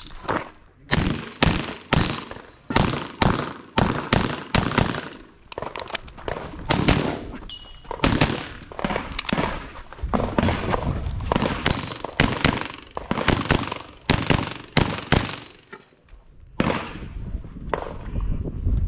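Rapid pistol fire from a custom 2011 chambered in .357 SIG at major power factor, shot in quick pairs and fast strings with short pauses between them. A brief lull comes about three-quarters of the way through, then the shooting resumes.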